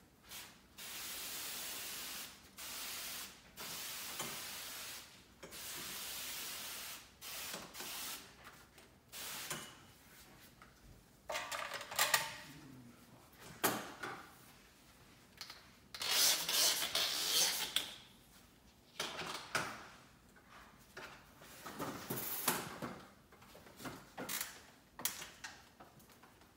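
Pressurized tank sprayer hissing as it wets the window glass, in four bursts of a second or two each during the first seven seconds. Then irregular rubbing and handling noises, with another short hiss about two-thirds of the way through.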